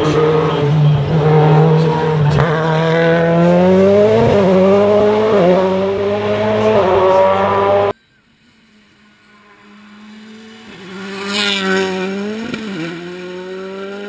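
Skoda Fabia WRC's turbocharged four-cylinder rally engine driven hard through a hairpin, revs rising and dropping with each gear change. About eight seconds in the sound cuts to a faint, distant engine that grows louder as the car approaches, again rising and falling through shifts.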